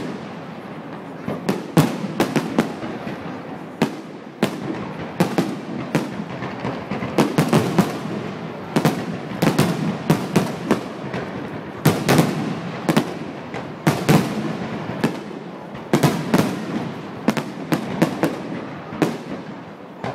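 Aerial fireworks shells bursting in the finale of a display, many sharp bangs in quick clusters, with crackling between the volleys.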